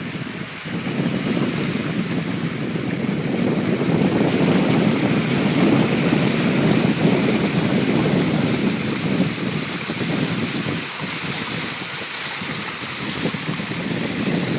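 Floodwater making a steady rushing hiss, which grows louder about four seconds in.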